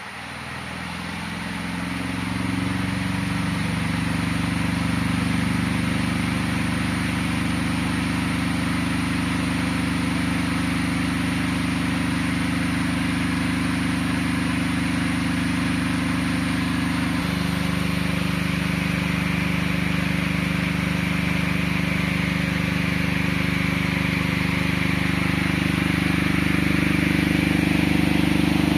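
Cadence electric fan with a colourful plastic blade running: its motor hum climbs as it spins up over the first couple of seconds, then holds steady with a rush of air. About 17 seconds in the hum's pitch shifts abruptly, and near the end it gets a little louder.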